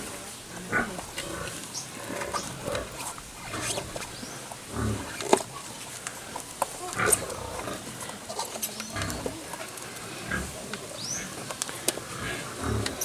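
Short, low animal grunts, a few of them spread through, among scattered small clicks and taps.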